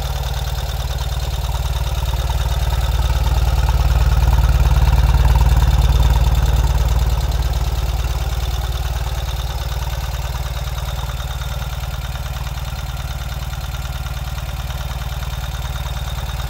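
2023 Ural sidecar motorcycle's air-cooled boxer twin running at a steady fast idle during cold warm-up, with the extra mechanical noise of a cold engine that the dealer calls perfectly normal. It grows louder for a few seconds in the middle, then eases back.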